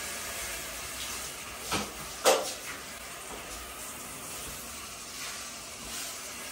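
Water spraying from a handheld shower head onto a glass shower screen, a steady hiss. About two seconds in come two knocks, half a second apart, the second louder.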